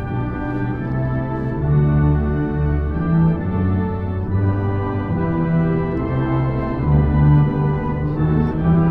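Massed military band playing a slow piece in sustained chords, each held for a second or two before the harmony changes.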